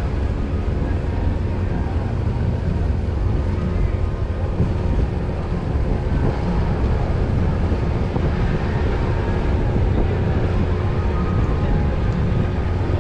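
Ship's engines running with a steady low rumble and a few faint steady tones over it.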